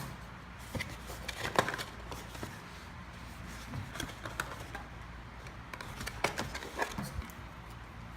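Product box and packaging being opened and handled: scattered light clicks and rustles at uneven intervals, the sharpest about a second and a half in and again around six seconds.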